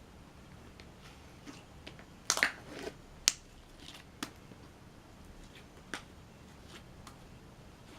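Compound Kings slime squeezed by hand, pushing out trapped air as fart-like noises: a quick run of pops and crackles about two seconds in, ending in the sharpest pop a second later, then a couple of single faint pops.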